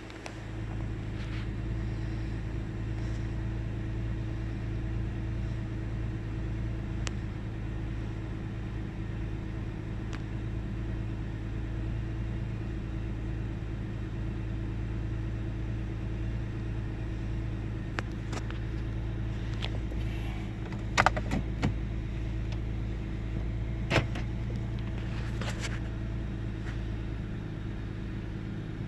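1998 Ford Taurus OHV V6 idling steadily, heard from the engine bay. A few sharp clicks come in the later part. The engine has an intermittent sputter, misfire and idle fluctuation whose cause is still unknown.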